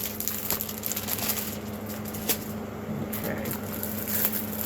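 Diamond painting kit packages being handled: rustling and crinkling with scattered small clicks, over a steady low hum in the background.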